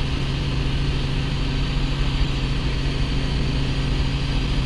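Light helicopter's engine and rotor heard from inside the cockpit in level flight: a steady low drone with a hiss of wind above it.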